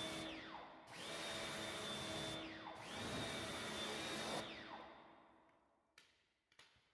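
Electric pressure washer firing in short bursts, the jet hissing onto a car's door sill. At each pull of the trigger the motor whine rises and holds steady, and at each release it falls away. The first burst ends just after the start, two more follow, and the last dies away about four and a half seconds in.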